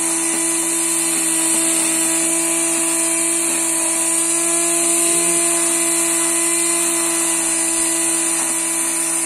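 Electric angle grinder running steadily as the cutting head of a homemade wheeled grass cutter while it is pushed through grass: a constant whine at one steady pitch with a high hiss.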